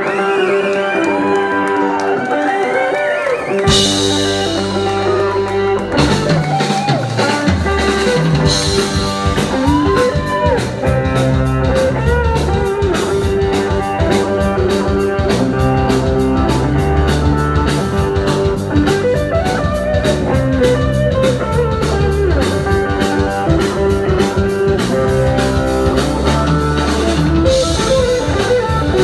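Live rock band. An electric guitar first plays bending lead notes on its own. Bass comes in about four seconds in, and the full band with drums is playing from about seven seconds on.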